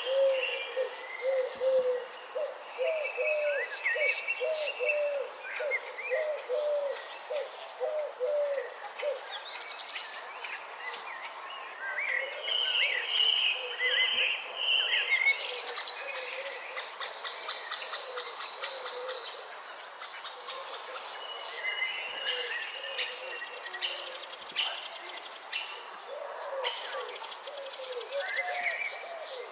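Birds calling and singing over a steady high-pitched insect buzz: a low call repeated about twice a second for the first several seconds, with chirps and whistles above it. The insect buzz stops near the end.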